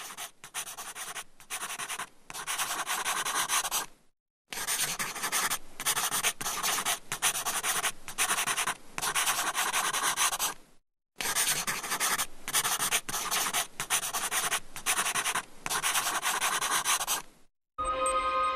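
Handwriting on paper: a writing tip scratching across the sheet in quick strokes, each under a second, with two brief pauses. Music begins just before the end.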